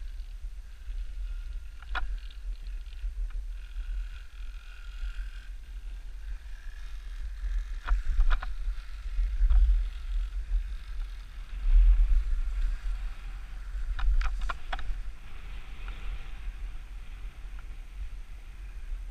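Wind buffeting the microphone of a head-mounted camera with a low, uneven rumble, over the hiss of skis sliding through powder snow. A few sharp clicks cut through: one about two seconds in, a few around eight to nine seconds and a quick cluster around fourteen seconds.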